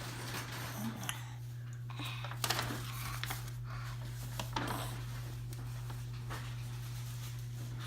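Quiet room tone with a steady low hum and a few faint taps and rustles.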